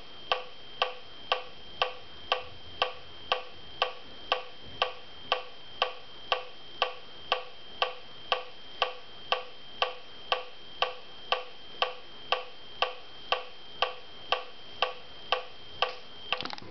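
Digital metronome clicking a steady beat, about two clicks a second, each a sharp electronic tick. Near the end a quick flurry of clicks as a hand reaches for the unit.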